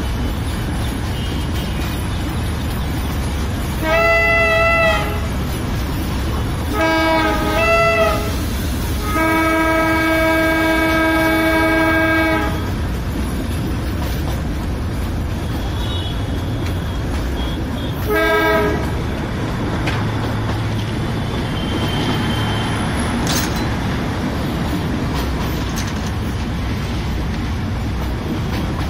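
Darjeeling Himalayan Railway narrow-gauge toy train running, a steady rumble of wheels and coach, while its horn sounds several times: a short blast about four seconds in, a few quick toots, a long blast of about three seconds, and a last short toot past the middle.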